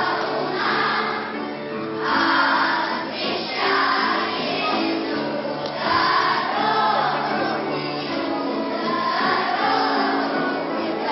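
Children's choir singing a Russian folk song, accompanied by a keyboard playing held notes.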